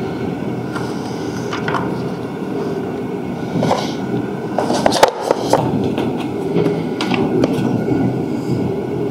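Plastic air filter cover being fitted back onto a Predator 420cc generator engine: scattered clicks and knocks of plastic against the engine housing, most of them around the middle, over a steady low rushing noise.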